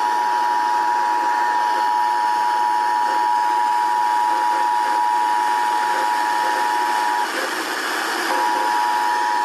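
Emergency Alert System attention signal: two steady tones sounding together just under 1 kHz, played through a radio over steady hiss. It cuts out for about a second near the end, then comes back. It is the alert tone that warns the monthly test message is about to follow.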